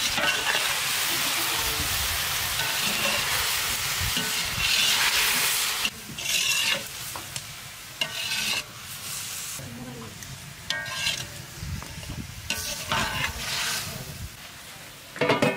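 Capsicum and tomato sabzi with freshly added ground spices sizzling in a pan and stirred with a spatula: a steady sizzle for about the first six seconds, then short bursts of scraping strokes with quieter gaps between them.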